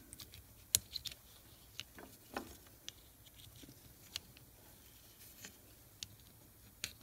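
Small, scattered clicks and taps as vanes are fitted by hand into the slots of an air impact wrench's motor rotor, with parts knocking lightly against the metal.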